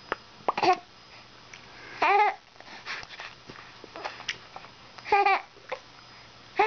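Baby babbling: a few short pitched vocal sounds, each rising then falling, a couple of seconds apart, with small mouth or tongue clicks in between.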